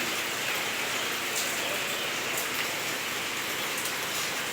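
Heavy rain falling steadily, a continuous even hiss of drops on surfaces.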